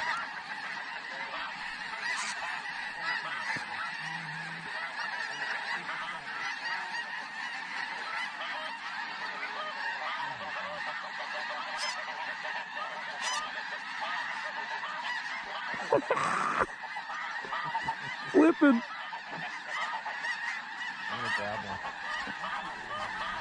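A huge flock of snow geese calling overhead: a dense, unbroken din of overlapping high-pitched honks. Two louder, nearer calls stand out about two-thirds of the way through.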